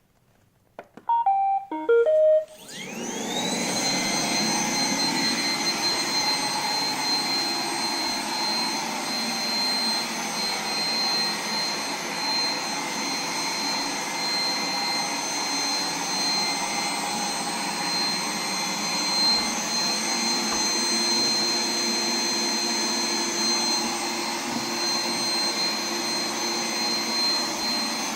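iRobot Roomba 980 robot vacuum sounding a short series of tones as it starts a cleaning run, then its vacuum motor spinning up with a quickly rising whine and running steadily.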